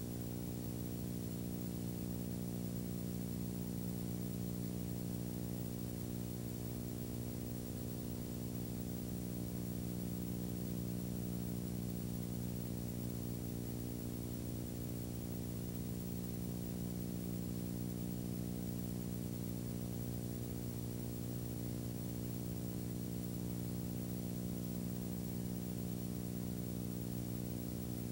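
Steady low electrical hum with a stack of buzzing overtones and a faint hiss, unchanging, with no sound from the scene itself.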